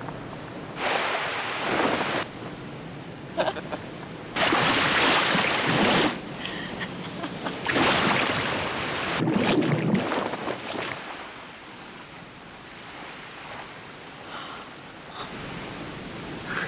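Ocean surf washing in: four loud, rushing swells of waves, then a softer, steady wash in the last third.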